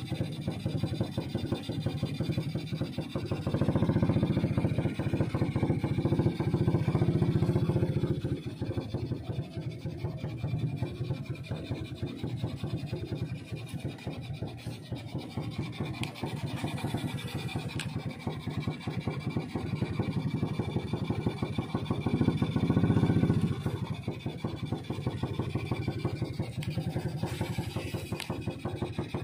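Small boat engine running steadily, swelling louder a few seconds in and again near the end.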